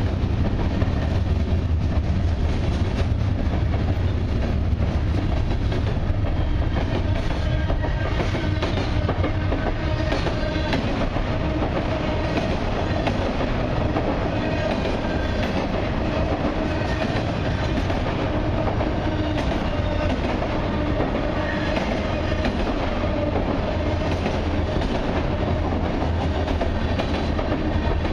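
Freight cars of a long CN train, gondolas and autorack cars, rolling past close by: a steady low rumble with the wheels clicking over the rail joints.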